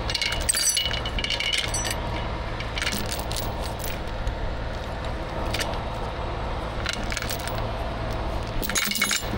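Steel recovery chain clinking and rattling in short irregular bursts as it is handled, over the steady low hum of a heavy truck engine idling.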